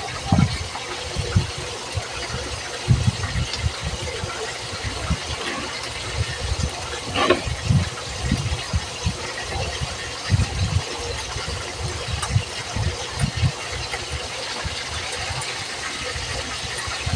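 Yardlong beans being snapped by hand into short pieces. Irregular low thumps come from hands and bean pieces knocking on the plate and counter, over a steady background hum.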